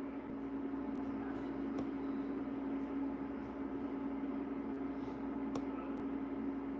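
Steady hum with a soft hiss beneath it, as from a running kitchen appliance or fan; two faint clicks, about two seconds in and again near the end.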